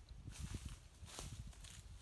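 A few faint footsteps crunching on dry leaves and gravel, over a low rumble of wind on the microphone.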